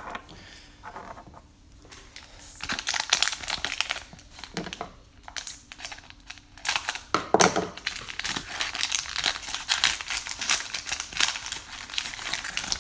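The plastic wrapper of a Score football card cello pack crinkling as it is torn open and handled. The crinkling comes in a dense run of crackles from about two seconds in, loudest near the middle.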